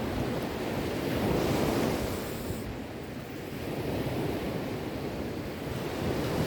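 Sea waves breaking and washing on the shore, a steady surf rush that swells about a second and a half in, eases off near the middle and builds again toward the end.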